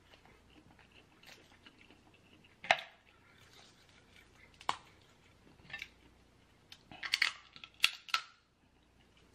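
A person chewing a mouthful of seafood, close to the microphone: scattered soft wet clicks and smacks, a tighter run of them near the end.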